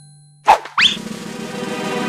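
Cartoon sound effect: a sudden pop with a quick upward pitch slide, followed by children's background music.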